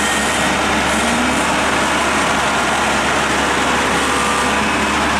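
Kubota DC70 combine harvester's diesel engine running steadily.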